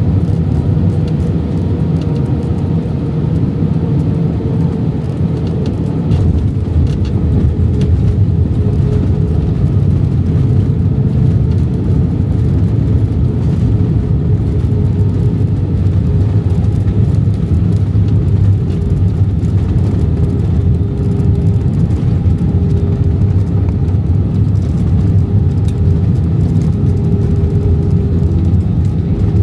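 Airbus A319 cabin noise during landing: a steady, loud rumble of the engines and airflow, with a faint hum that slowly drops in pitch. The noise gets slightly louder about six seconds in.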